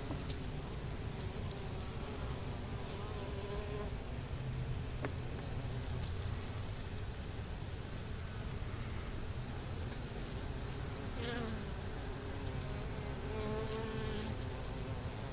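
Honey bees buzzing steadily at a hive entrance, with a single bee's wavering wing buzz passing close twice in the second half. Two sharp clicks in the first second or so.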